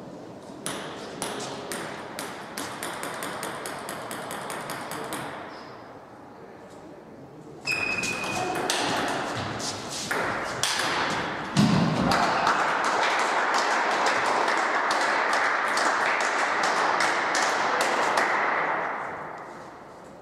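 Table tennis ball clicking in quick succession off bats and table, about four hits a second. Later a louder, steady din of spectators' voices and clapping builds up over the clicks and fades away near the end.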